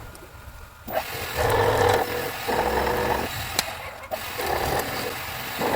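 A power tool's motor running in several short spells, each about half a second to a second long, with brief dips between them.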